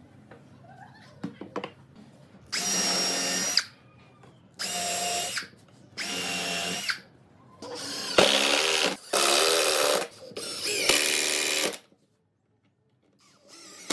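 Cordless drill running in six short bursts of about a second each, working into the end of a wooden rail, its motor pitch shifting under load in some bursts. A few faint knocks of wood being handled come before the first burst.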